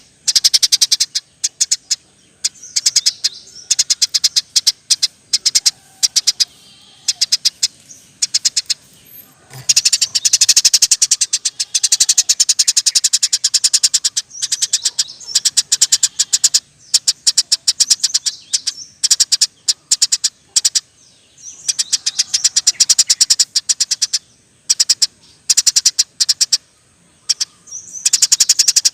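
Eurasian tree sparrow chirping in fast rolling runs: rapid, high, short chirps in bursts of a few seconds with brief pauses between them.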